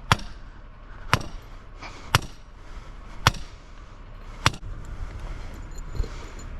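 Hammer striking formwork pegs: five sharp blows, roughly one a second.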